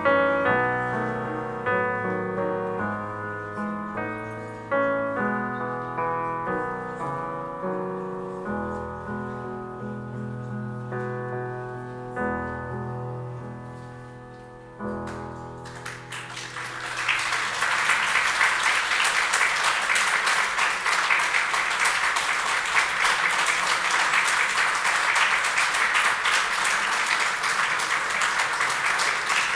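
Yamaha grand piano playing a closing passage that grows quieter, ending on a final chord about halfway through. Audience applause then starts and continues steadily, louder than the piano.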